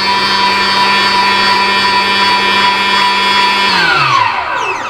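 Electric meat grinder running steadily while mincing zucchini and bell peppers. About four seconds in it is switched off, and its motor whine falls in pitch as it winds down to a stop.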